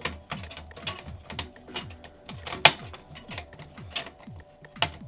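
Irregular clicks and small taps of motherboard screws and a screwdriver against a computer case, with one sharper knock about two and a half seconds in.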